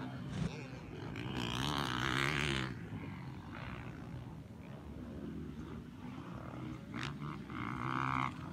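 Motocross dirt bike engines revving on the track, the pitch rising and falling as the riders work the throttle, loudest about a second and a half in and again near the end.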